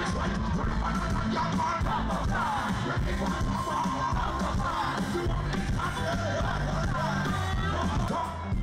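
Live band music with strong bass and singers' voices over the sound system, with the crowd yelling along.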